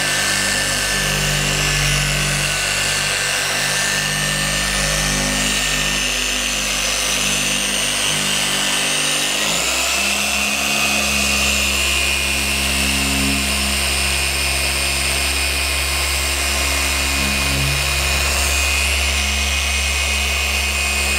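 Electric machine polisher running steadily as its foam pad works a one-step compound over car paint. Its motor note shifts about halfway through.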